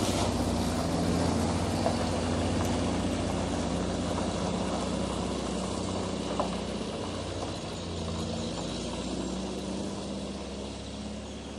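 Air-cooled flat-four engine of a 1971 VW Type 2 Bay Window camper van pulling away, its sound fading steadily as the van drives off.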